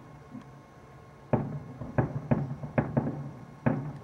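Distant aerial fireworks shells bursting: a run of about six sharp bangs, starting about a second and a half in, over a steady low hum.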